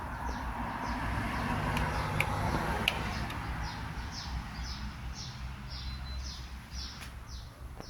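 Daikin air conditioner outdoor unit running: a steady low hum with a rush of fan air that swells over the first few seconds and then eases. Birds chirp over it in short, repeated falling notes.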